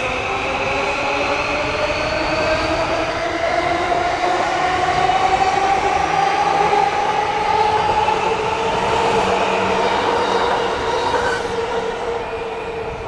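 E235-series Yamanote Line electric train running close by, its traction motors whining in several tones that rise slowly in pitch as it gathers speed, over the rumble of wheels on rail. It is loudest around the middle and fades a little near the end.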